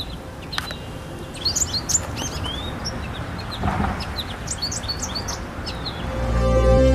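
Small birds chirping in quick clusters of short, high notes over a steady outdoor hiss. Music fades in near the end.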